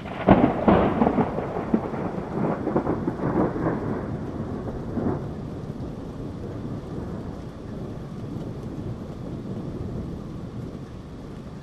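Thunder cracking and rumbling over steady rain, sharpest and loudest in the first second, with crackles running on for about five seconds before it dies away and leaves the rain's steady hiss.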